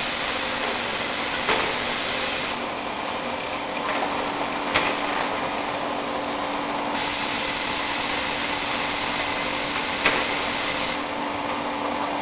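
VFS7300A vertical packaging machine running as it forms box-type flour bags: a steady mechanical hum, a high hiss that stops about two seconds in, returns midway and stops again near the end, and three sharp clacks a few seconds apart.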